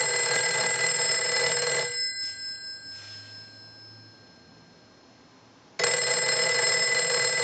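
Western Electric 302 rotary telephone's bells ringing on a ring cycle sent from a test analyzer: a ring of about two seconds that dies away, a pause of about four seconds, then the next ring starting near the end. The freshly adjusted bells are ringing in properly.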